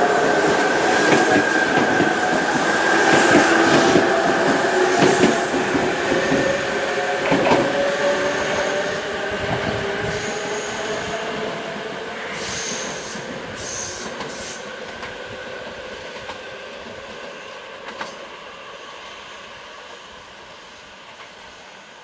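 Tobu 100 series Spacia electric express pulling away: its motors whine over the running noise of the wheels, and the sound fades steadily as the train goes off. Short high-pitched wheel squeals come about halfway through as it takes a curve.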